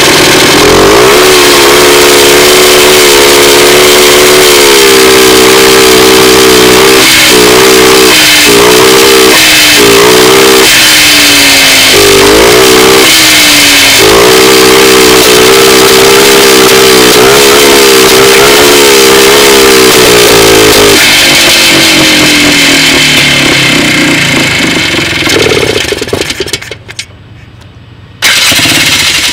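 Polaris quad (ATV) engine running loud and unevenly, misfiring: the revs rise and hold, stumble and recover several times in quick succession, then sink. Near the end the engine sound drops away, comes back briefly once, and drops away again.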